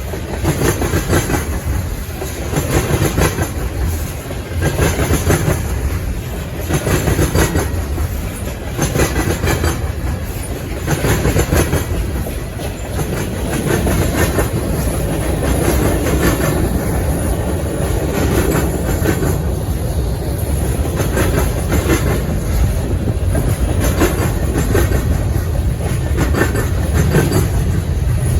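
Freight cars of a CN mixed manifest train rolling past, their steel wheels rumbling on the rails and clacking over rail joints in a repeating rhythm.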